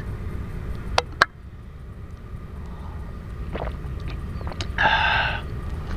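Stainless-steel thermos and its metal cup being handled: two sharp clinks about a second in, over a steady low rumble. Near the end comes a brief rushing sound.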